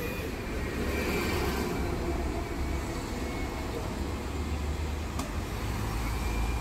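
Road traffic passing on the street: a steady low rumble of car engines and tyres.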